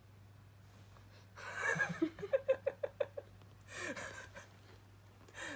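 A person laughing softly: a breathy burst, then a quick run of short 'ha' sounds, and another breathy laugh about four seconds in.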